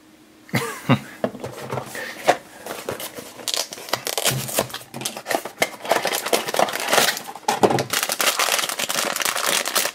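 A cardboard blind box being opened and the foil bag inside crinkled and torn open: a dense run of crinkling and crackling, busiest in the middle of the stretch.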